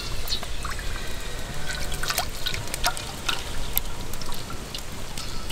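Cooking oil poured in a thin stream into an iron kadai, trickling and splashing with scattered small plinks and drips.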